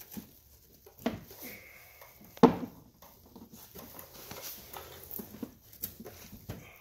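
Plastic inner fender liner being pulled and flexed by hand, scraping and rubbing against the wheel arch, with a sharp knock about two and a half seconds in, the loudest sound, and a smaller one about a second in.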